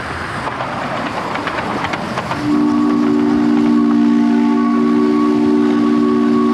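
Miniature steam locomotive running with a hiss of steam and scattered clicks, then about two and a half seconds in its chime steam whistle sounds, a steady chord of several notes held on.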